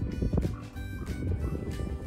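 Background music: held instrument notes over a steady percussive beat.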